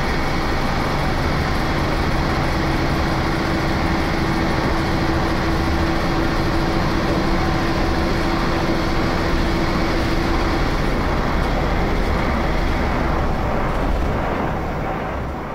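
Cabin noise of a ČSD class 810 railbus on the move, its replacement TEDOM diesel engine and running gear giving a loud, steady drone. A steady hum in the drone stops about two-thirds through, and the whole sound fades out near the end.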